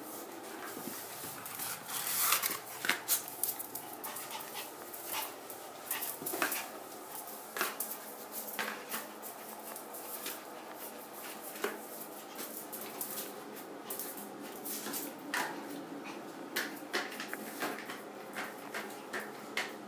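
A Pomeranian playing, with many short, sharp scuffles and clicks.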